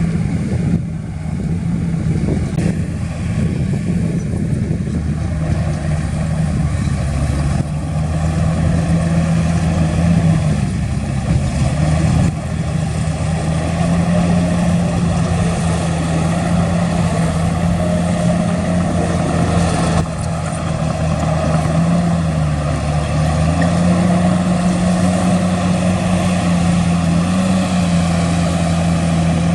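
Heavy diesel earthmoving machine engine running steadily under load. Its pitch dips and comes back up a few times, about a third of the way in and again about three quarters through, as the load or throttle changes.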